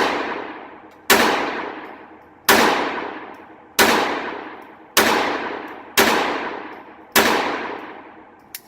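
Phoenix Arms .22 LR pistol firing six shots at a steady pace, roughly one every second and a bit, each with a long echoing decay. A faint click comes near the end.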